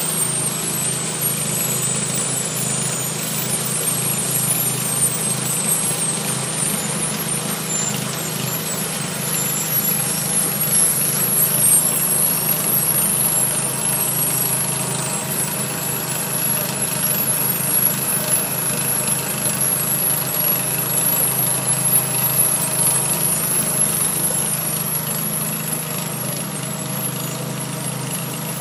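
Aquatic weed harvester's engine and conveyor running steadily while offloading harvested lake weeds, a constant low mechanical drone.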